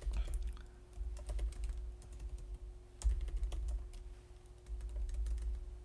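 Typing on a computer keyboard: quick runs of keystroke clicks with brief pauses between them.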